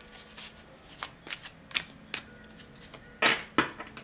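A deck of tarot cards shuffled in the hands: a run of irregular soft card flicks and taps, with two louder slaps of the cards about three seconds in.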